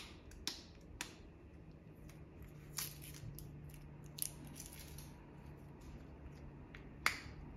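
Hard plastic tube of a candy-dispenser toy handled and turned in the fingers: several sharp plastic clicks and taps with light rubbing between them, the loudest click near the end.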